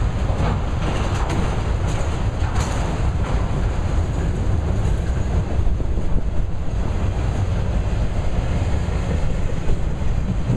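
Freight train of auto rack cars rolling past, steel wheels clattering on the rails, with a few sharp clicks in the first three seconds. A heavy low rumble of wind on the microphone runs underneath.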